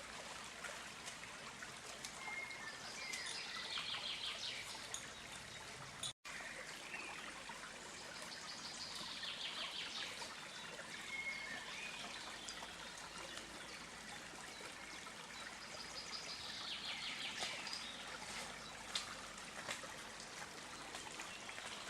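Stream water trickling and flowing steadily, with a bird singing short trilled phrases every several seconds and a few brief whistles. The sound cuts out for a split second about six seconds in.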